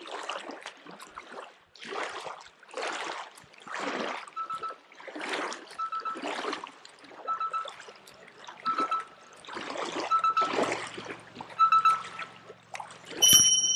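Small waves lapping and splashing against a gravel shoreline in a steady series of soft washes, one every second or so.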